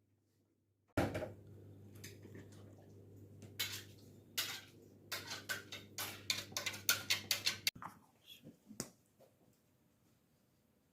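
Cutlery clinking and knocking against kitchen dishes, with a quick run of sharp clinks, about four or five a second, for a few seconds. A low steady hum runs beneath and cuts off suddenly just after the clinking.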